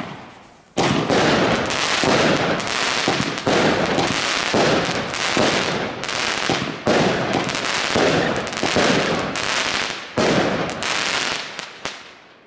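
Pyrotrade Zombie 3, a 9-shot, 20 mm consumer firework cake, firing shot after shot about every second or so. Each shot bursts into a cloud of dense crackling, and the crackling dies away near the end.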